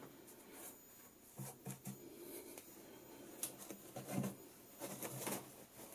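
Faint rubbing and scuffing of hands on a foam insert and an aluminium flight case, with a few soft, short handling sounds scattered through.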